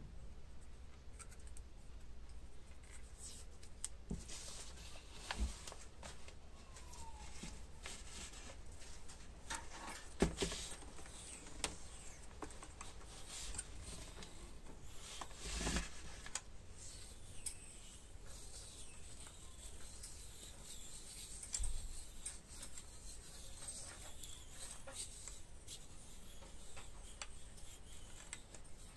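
Quiet handling noises as small parts and a wooden walking stick are worked by hand: soft rubbing and scraping with scattered light taps and a few louder knocks.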